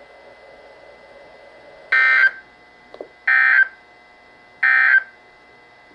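Three short, equal bursts of NOAA Weather Radio SAME digital data tones, a buzzy warble a little over a second apart: the end-of-message code that closes the tornado warning broadcast.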